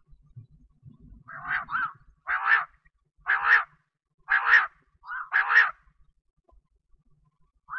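Quail (bater) calling: a run of calls about once a second, a couple of them doubled, then one short call near the end.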